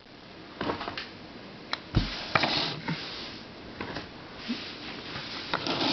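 Handling noise from plastic puzzles being picked up and moved: scattered light clicks and knocks with soft rustling, and a firmer knock about two seconds in.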